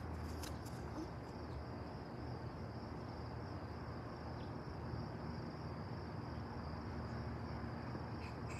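Crickets trilling in one steady, unbroken high-pitched tone, over a low steady rumble of background noise.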